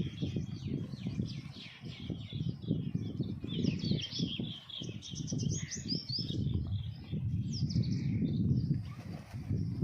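Many small birds chirping in quick, overlapping calls, over a low, uneven rumbling noise that comes and goes in short patches.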